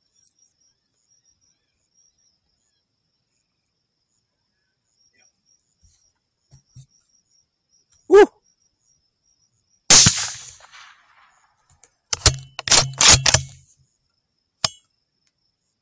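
A rifle shot at a coyote about two-thirds of the way in: one loud sharp crack that trails off over about a second. A short call comes a couple of seconds before it, and a quick run of loud clacks and clicks follows it.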